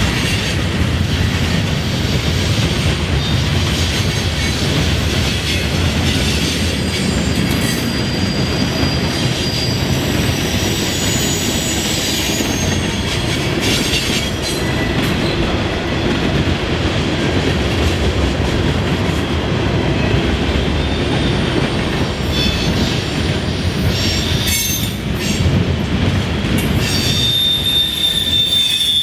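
Freight cars of a Norfolk Southern manifest train rolling over rail diamonds: a steady rumble with the clatter of wheels across the crossing, and high wheel squeals, a longer one near the end.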